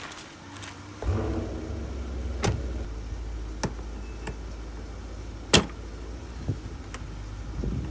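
Car running: a low steady hum starts abruptly about a second in and holds, with a handful of sharp clicks and taps over it, the loudest a little past halfway.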